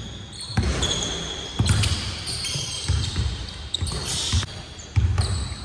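A basketball bouncing on a hardwood court, thudding about once a second, with short high squeaks from sneakers on the floor.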